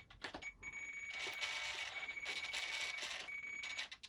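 RC transmitter beeping: a couple of short high beeps, then one long steady beep lasting about three seconds, with two brief stretches of servo whirring as the control surfaces move.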